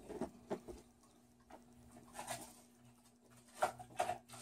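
Pit bull whining a few short times, wanting to be let into the room, with light clicks and knocks from small items being handled. Two of the whines come close together near the end.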